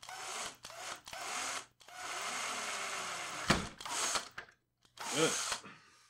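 Power drill boring into the plastic barrel plate of an IBM Model M keyboard, drilling out a rivet post for a bolt: several short runs of the drill with brief pauses, the longest about a second and a half, and a sharp click about three and a half seconds in.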